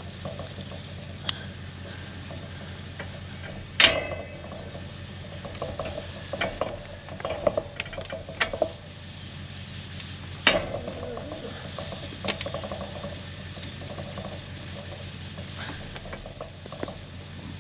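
Handling noises as a ram marking harness is buckled and adjusted on a ram standing in a metal sheep chute: scattered clicks and rattles of strap and buckle, with a few sharp knocks, the loudest about four and ten seconds in.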